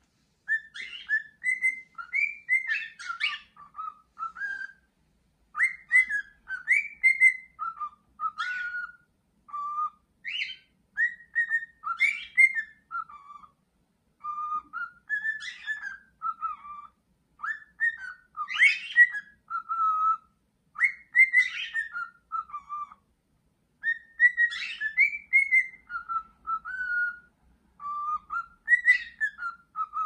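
Male cockatiel singing: a string of clear whistled phrases made of short notes and quick upward-sweeping whistles, repeated with brief pauses between.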